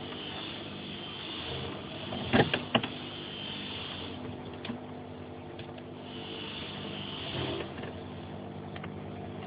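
Screws being driven back into a Mazda MX5's plastic centre console with a screwdriver, a scraping hiss while turning, with a few sharp clicks about two and a half seconds in.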